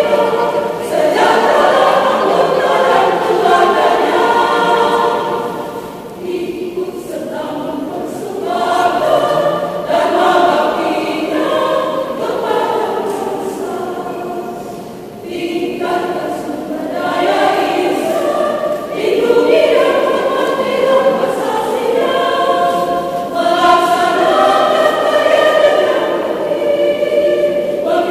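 Women's choir singing, growing softer about six seconds in and again around fifteen seconds in before swelling back to full voice.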